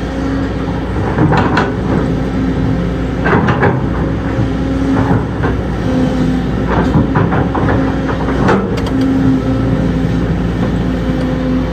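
Heavy diesel earthmoving machine running steadily, with irregular metallic clanks and knocks over the engine sound.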